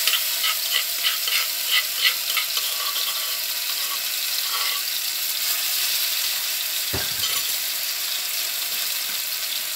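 Pounded chili paste sizzling in hot oil in a non-stick wok, a steady frying hiss. A quick run of light clicks sounds over the first two seconds or so, and a single thump comes about seven seconds in.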